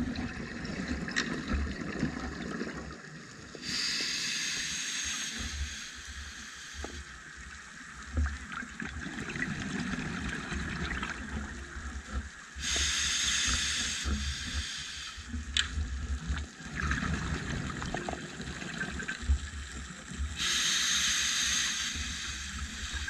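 Scuba diver breathing through a regulator underwater: three inhalations, each a hiss of about three seconds, and after each a rumble of exhaled bubbles, in a slow breathing rhythm.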